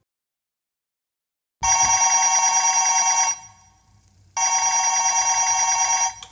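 Telephone ringing twice, each ring a trilling tone about a second and a half long with a pause between, after a silent start; the ring of a call waiting to be answered.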